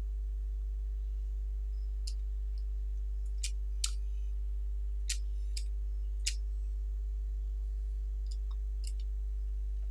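A computer mouse clicking about eight times at uneven intervals, short sharp clicks, over a steady low electrical hum.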